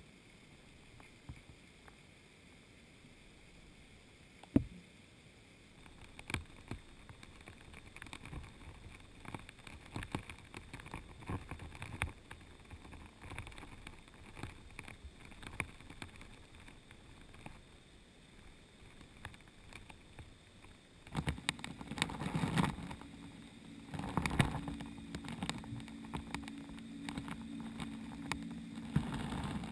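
Muffled underwater sound picked up through a camera housing on the riverbed: faint hiss with scattered clicks and knocks, one sharp knock about four and a half seconds in. About two-thirds of the way through, the low steady hum of a boat engine carried through the water joins.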